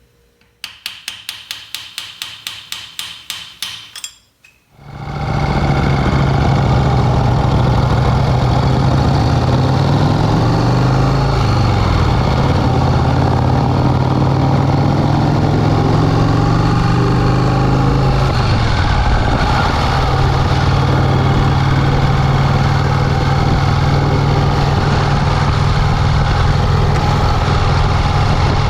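A rapid run of metallic clicks, about four a second, for three or four seconds, then the 1951 Vincent Rapide's 998 cc V-twin engine catches and runs steadily, its pitch wavering a little partway through.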